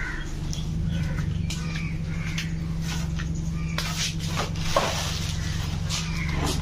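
Black plastic bag rustling and crinkling as it is carried, set down and handled, the loudest rustle about four to five seconds in, over a steady low hum.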